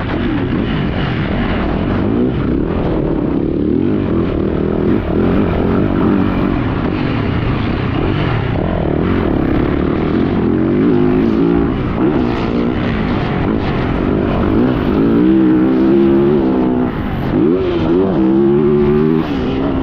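Yamaha YZ450F four-stroke single-cylinder motocross bike engine revving up and down continuously as it is ridden round the track, with several sharp rises and falls in pitch in the second half.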